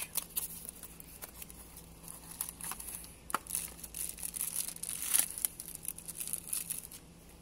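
Packaging of a new door lock switch being opened by hand: irregular crinkling and tearing with small clicks, the loudest rustle about five seconds in.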